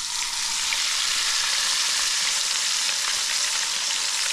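Seasoned fish frying in hot oil and lard, sizzling steadily after a brief swell in the first moment as the fish goes in.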